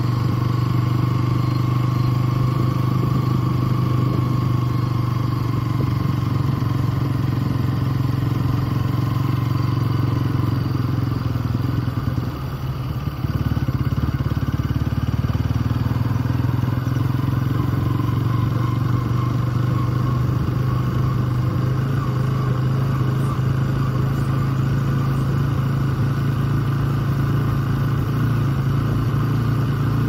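Motorcycle engine running steadily while riding, its note dipping briefly about twelve seconds in.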